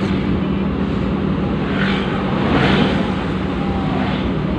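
Engine drone and road noise heard inside the cabin of a moving vehicle, a steady low hum. A louder hiss swells and fades about two seconds in, as of passing traffic.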